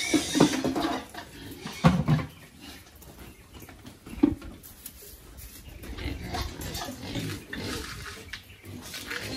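Pigs grunting, with short loud calls near the start, about two seconds in and about four seconds in.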